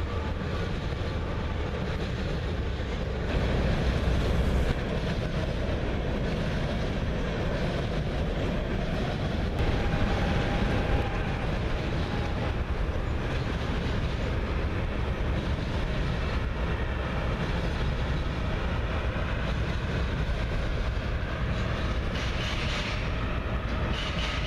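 Coal train of hopper cars rolling across an elevated steel girder bridge: a steady noise of wheels on rails and cars passing.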